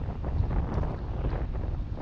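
Wind buffeting the microphone of a camera on a moving car, an uneven low rumble that gusts up and down.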